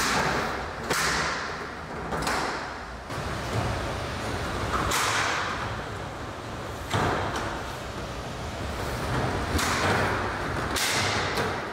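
Large plastic ebb-and-flow trays being slid and shifted on a rolling bench: a series of scraping swishes, about seven in all, some starting with a sharp knock.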